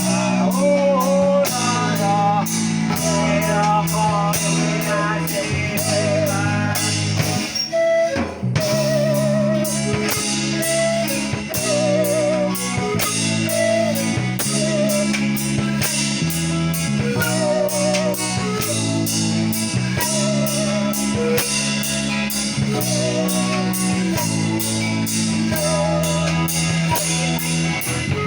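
Music: an acoustic song with bamboo pan pipes, guitar and drums, a steady beat under a sung melody with vibrato. The music breaks off briefly about eight seconds in.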